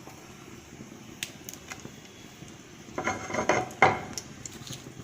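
Metal utensils clattering against a frying pan and dishes for about a second, starting about three seconds in, over a faint steady hiss of spices frying in hot oil.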